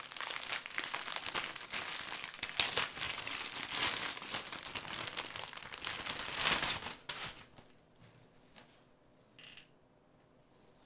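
Packaging of a prize towel crinkling and tearing as it is opened and pulled off, for about seven seconds. Then it is much quieter, with one short rustle about nine and a half seconds in.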